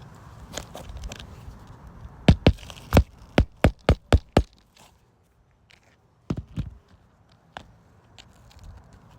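Hammer blows on an asphalt shingle roof during a shingle replacement: a quick run of about eight sharp strikes, then a few more after a pause.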